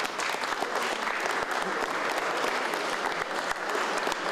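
A crowd clapping hands in steady, sustained applause.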